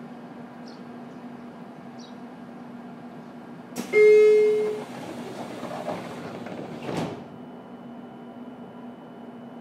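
Sliding passenger doors of a JR Kyushu 303 series electric train closing over the car's steady hum. A single loud warning tone sounds about four seconds in, then the doors run shut and close with a thud about seven seconds in.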